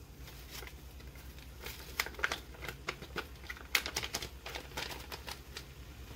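Chili seasoning packets crinkling as they are shaken and squeezed empty into a pot, in a run of irregular crackles.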